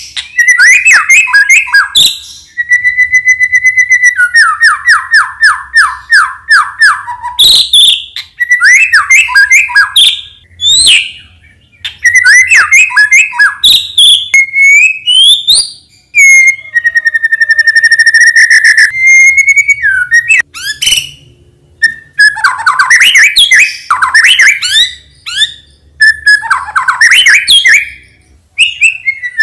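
White-rumped shama singing loudly in an unbroken run of varied phrases: clear whistles, quick sweeping notes, a rapid series of repeated notes a few seconds in, and a long held whistle near the middle.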